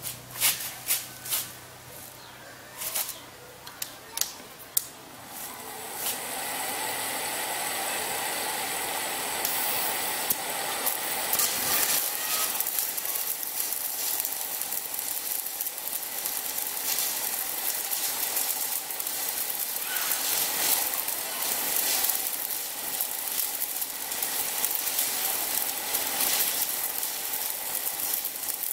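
Stick-welding arc from a repaired Rhino 160 inverter welder. Several sharp cracks come in the first five seconds as the electrode is struck. From about six seconds on the held arc gives a steady crackling hiss: the machine strikes and holds an arc normally.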